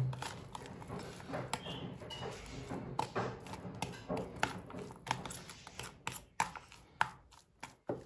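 A fork stirring and mashing a moist grated beetroot and egg mixture in a plastic tub, with irregular light clicks and scrapes of the fork against the plastic.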